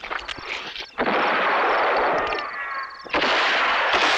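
Two gunshot blasts about two seconds apart. Each is followed by a long decaying tail with slowly falling whistling tones. Before them come a few small clicks and rhythmic high chirping.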